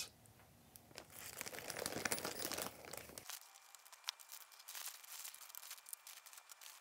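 Clear plastic bags crinkling as parts are unpacked and laid out, with faint scattered clicks and ticks of small items being handled; one click is sharper just after four seconds in.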